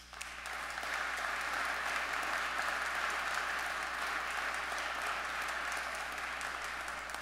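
Congregation and clergy applauding: many hands clapping, swelling over the first second, holding steady, then dying away near the end.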